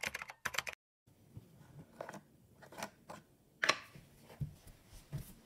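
Rapid keyboard-typing clicks for under a second, then a brief dead silence. After that come faint, scattered crackles and taps as a tub of granular slime is handled.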